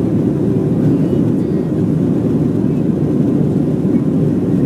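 Steady low roar of an Airbus A330's engines and airflow, heard inside the passenger cabin during the climb after take-off.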